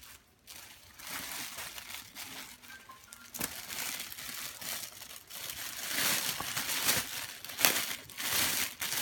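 Rustling and crinkling of stiff, stone-studded blouses being handled and spread out by hand on a tiled floor. It grows louder in the second half, with a few sharper crackles.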